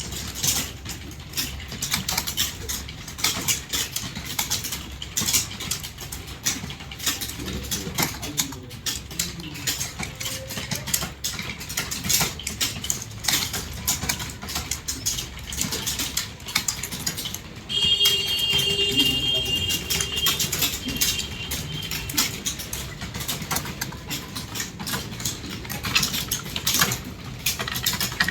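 Rapid, continuous typing, keys clattering without a break. A little past halfway a steady high tone with a lower hum sounds for about three seconds.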